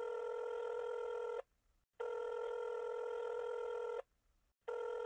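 Telephone ringing tone heard on a phone line: a steady buzzing tone of about two seconds, broken by two short gaps and starting again each time.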